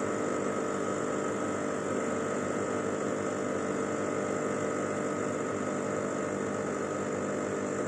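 Milesto IV espresso machine's pump humming steadily while it pushes water through the coffee during an espresso shot.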